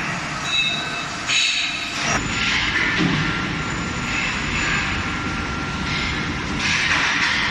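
Factory machinery running, a steady mechanical noise with faint whining tones.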